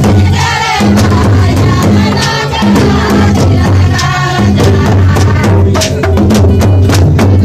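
Live folk dance music: people singing together over a two-headed barrel drum beaten in a steady rhythm. A run of quick, sharp clicks joins in near the end.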